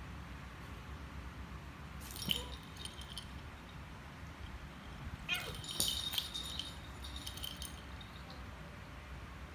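A small bell on a cat's collar jingles in two bouts during a play fight between two cats, once about two seconds in and again for a few seconds from about five seconds, with a brief cat cry at the start of the second bout.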